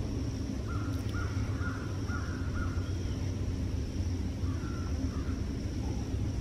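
A bird calling in a run of five short, harsh calls about two a second, then two more a couple of seconds later. Underneath are a steady low rumble and a faint, steady high whine.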